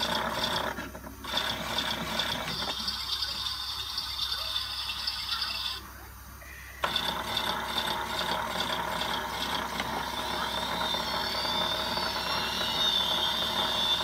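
Toy washing machine running its drum: a small motor and plastic gears whirring with rapid, even clicking. The sound breaks off briefly twice.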